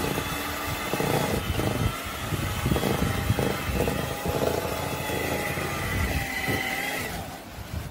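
Electric hand mixer running, its beaters working cookie dough in a stainless steel bowl, with a steady motor whine that stops about seven seconds in.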